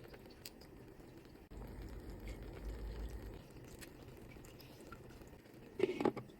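Faint wet, squishy bubbling of a pot of pilaf cooking, with scattered small clicks and a short louder clatter about six seconds in.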